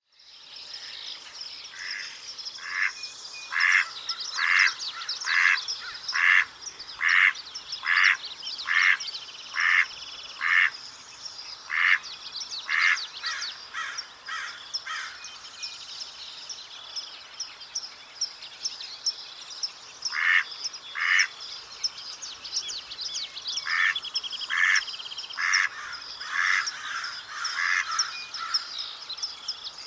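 Mallard quacking in runs of short, evenly spaced quacks, about one a second. There is a long run of about a dozen, then pauses and two shorter runs near the middle and end. Other birds chirp steadily at a higher pitch in the background.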